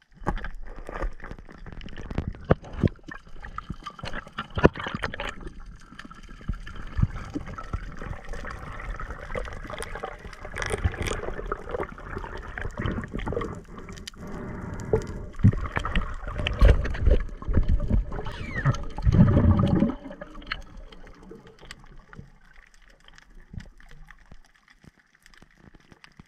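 Underwater sound picked up through an action camera's housing: water rushing and gurgling as the swimmer moves, with scattered sharp clicks and knocks. A louder surge of water noise comes about three-quarters of the way through, then it quietens.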